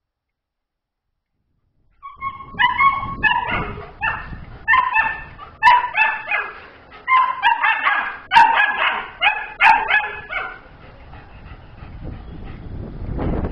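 A dog barking in a rapid, excited series of high-pitched, yelping barks, starting about two seconds in and stopping after about ten seconds.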